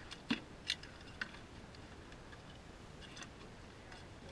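Sharp clicks and taps of metal crab tongs and crab shells as blue crabs are picked out of a cooler and sorted into a bushel basket. About four quick clicks come in the first second and a half, then a few fainter ones around three seconds in.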